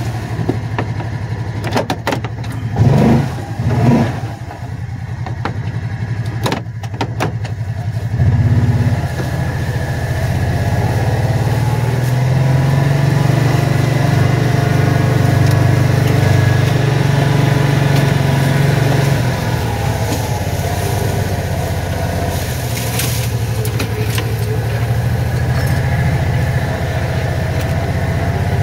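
Kawasaki Teryx4 side-by-side's V-twin engine running as it drives along a wooded trail. There is a clatter of knocks in the first several seconds. From about eight seconds in the engine runs louder and a little higher, holding steady under load.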